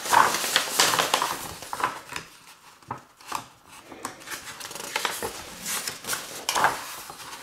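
Large paper plan sheets rustling and swishing as the pages of a printed instruction booklet are turned and smoothed by hand, louder in the first second and again near the end.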